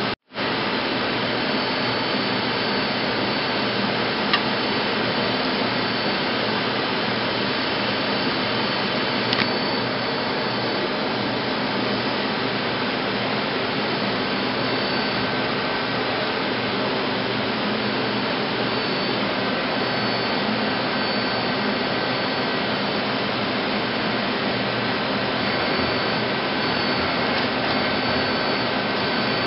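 A Mazak Multiplex 6200Y multi-axis CNC lathe running, giving a steady mechanical whir with faint steady tones in it and two light ticks, one about four seconds in and one about nine seconds in. The sound cuts out for a moment right at the start.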